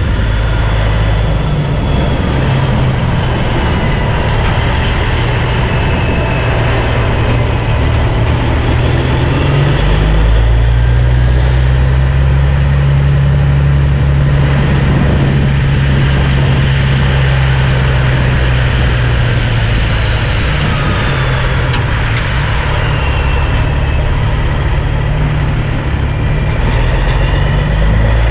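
1987 Kenworth C500 dump truck's CAT 3406B inline-six diesel running steadily at low revs as the truck creeps along. Its engine note steps up about ten seconds in and falls back in steps near the end.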